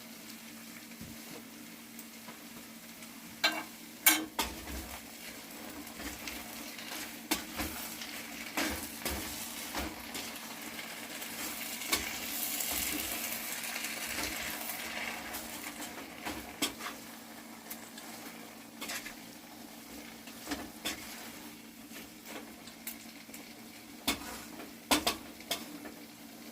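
Okra sizzling as it fries in oil in a pan, with a utensil clacking and scraping against the pan as it is stirred. The sizzle swells for a few seconds around the middle, and there are sharp knocks against the pan about four seconds in and again near the end.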